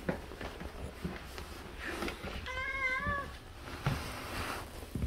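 Domestic cat meowing once, a short, slightly wavering call about halfway through, with soft footsteps and light knocks on a wooden floor around it.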